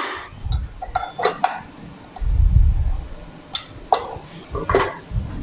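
The stainless steel bowl and flat beater of a KitchenAid stand mixer clinking and knocking as they are handled and fitted, with a series of separate sharp clinks and a dull thump a little after two seconds in.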